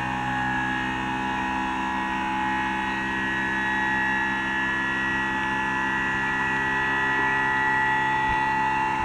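Electric scissor lift's hydraulic pump motor running with a steady hum and whine as the platform is raised.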